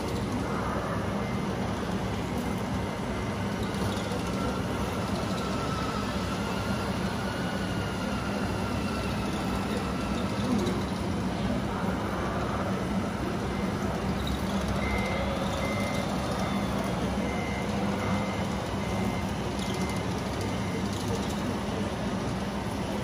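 Scale RC truck running, its electric drive whining up and down in pitch over a steady low hum. About two-thirds of the way in, a reversing beeper sounds about eight times, some two beeps a second, as the truck backs up.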